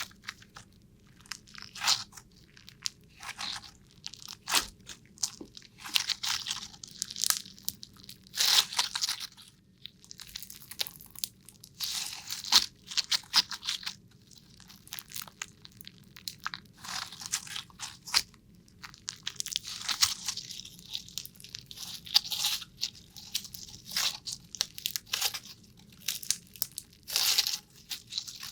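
Irregular bursts of crisp crunching and crackling, about one every second or two, from something being squeezed or broken close to the microphone.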